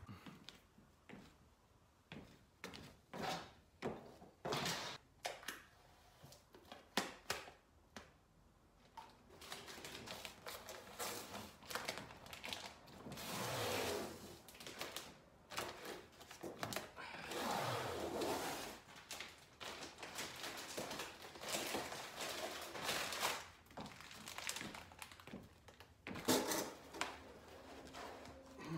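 Handling noise from unpacking a floor-standing speaker: a run of sharp knocks and clicks, then longer rustling and scraping of packaging, with a few more knocks near the end.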